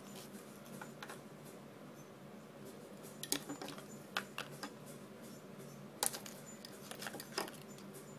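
Scattered light clicks and taps from handling fly-tying tools and materials at a vise while a flashabou tail is tied on, the sharpest about six seconds in, over a faint steady low hum.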